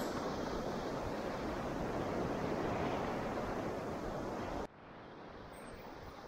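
Steady rushing noise of wind and sea at the water's edge. A little over two-thirds of the way through it drops suddenly to a fainter hiss.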